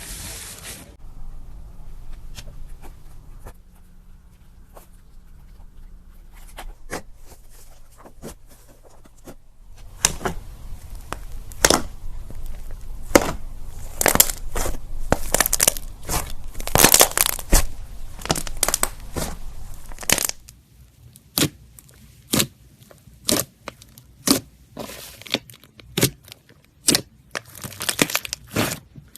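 Slime being squeezed and pulled by hand, giving crackling and popping. The first ten seconds are quiet with a faint low hum. Then comes a dense run of sharp crackles for about ten seconds, and after that single sharp pops about once a second.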